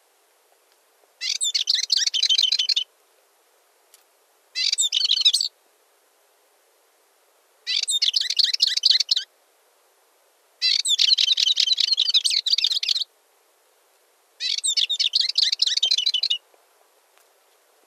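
Balearic warbler (Sylvia balearica) singing: five short phrases of rapid, high twittering notes, each about one to two and a half seconds long, separated by pauses of a second or two.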